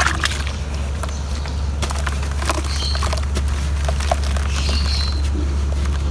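Chunks of cement crumbling in water: an irregular run of sharp crackling and crunching clicks over a steady low hum.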